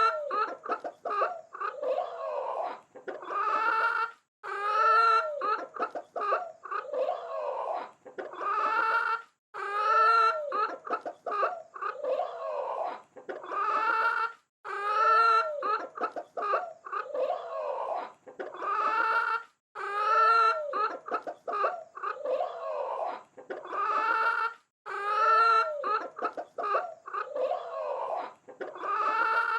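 Chickens clucking, a run of short pitched calls in clusters, with the same sequence repeating about every five seconds.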